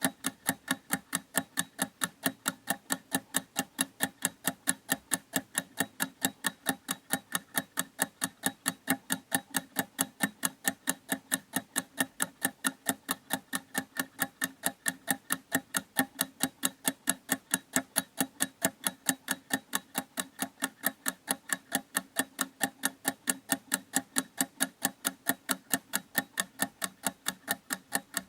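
A clock ticking in a steady, even rhythm of sharp ticks, several a second, unchanging throughout.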